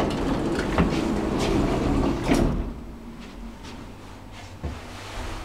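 Lift car's sliding doors closing after a button press on the car panel, ending with a knock about two seconds in as they shut, then a quieter steady background.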